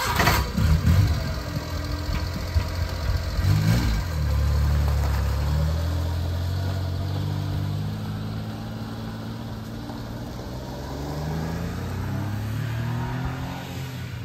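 Suzuki Carry 4x4 mini truck engine pulling away after a few knocks: the pitch rises with a short rev, climbs steadily, dips about halfway through as it shifts up a gear, then climbs again.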